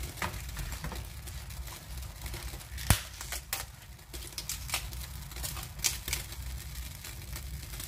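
Crisp savoy cabbage leaves crinkling and tearing as the tough stalk pieces are pulled off by hand, in scattered crackles, with one sharper snap about three seconds in.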